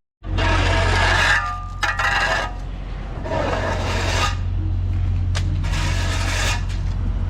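A shovel scraping through crushed stone in about four separate strokes, each lasting roughly a second, with one short click. Under it is the steady low hum of an engine running.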